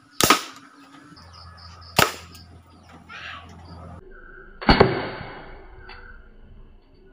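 Shots from a homemade PVC toy gun firing 5.5 mm steel balls: two sharp cracks, one right at the start and another about two seconds in. A louder crack with a longer ringing tail comes a little before five seconds.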